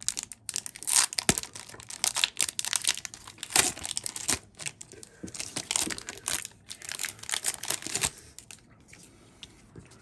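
Foil wrapper of a Pokémon booster pack crinkling and tearing as it is torn open by hand, in a run of crackly rustles that die down near the end.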